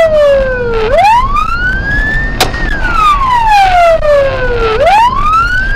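Police car siren on a slow wail: the pitch falls to its lowest point about a second in, rises, falls again, and starts rising near the end. Road and engine noise from the pursuing patrol car runs underneath. One sharp click comes a little over two seconds in.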